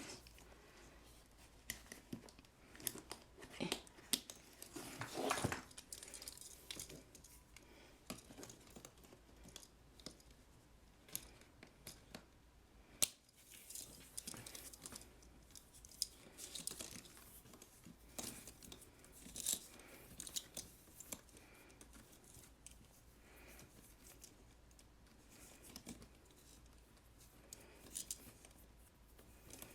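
A bag being handled: faint rustling with scattered small clicks and taps throughout, and one sharper click about 13 seconds in.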